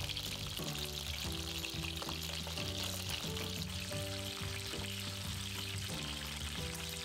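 Chicken wing flats frying in shallow hot oil, a steady sizzle, as they are turned over to brown both sides.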